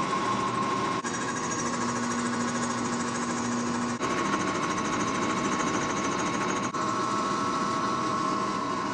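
Milling machine spindle running steadily, its cutter facing the flange of a cast iron turbo turbine housing flat.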